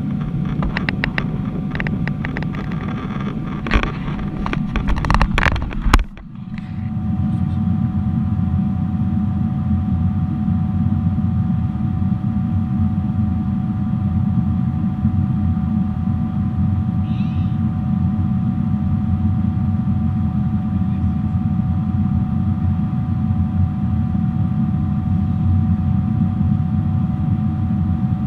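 Airliner cabin noise aboard a Boeing 777-300 in flight: a steady low drone of engines and airflow with a couple of steady whining tones. For the first six seconds it is mixed with clattering and rustling noise that stops abruptly.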